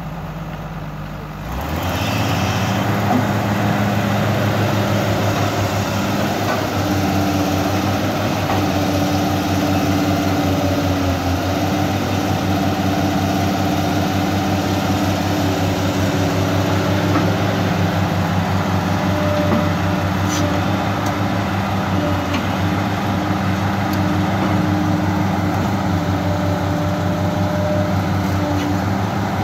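Caterpillar 318C hydraulic excavator's diesel engine running steadily while it digs, getting louder about two seconds in, with a higher hum coming and going over the engine.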